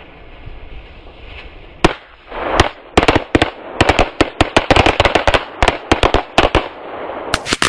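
A 'machine-gun belt' string of about thirty small firecrackers going off. A single bang comes about two seconds in and another shortly after. Then a rapid, irregular chain of sharp bangs runs on without letup.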